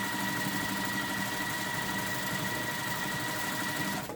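Electric sewing machine running steadily as it stitches a seam, with an even motor whine; it stops abruptly near the end.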